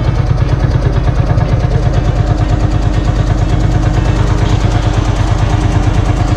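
Lanz Bulldog tractor's single-cylinder two-stroke hot-bulb engine running with a steady, even beat.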